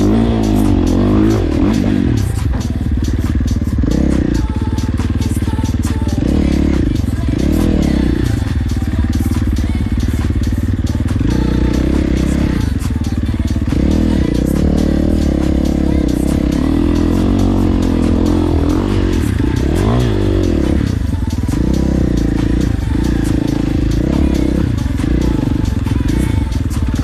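Motocross bike engine revving up and down repeatedly as it is ridden, its pitch climbing and dropping with the throttle, with music over it.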